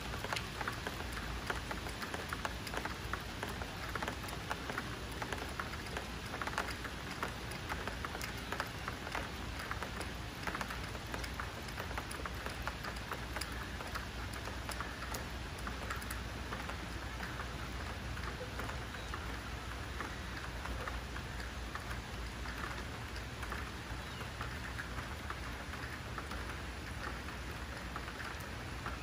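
Steady summer rain falling, a continuous hiss with a dense patter of individual drops striking close by.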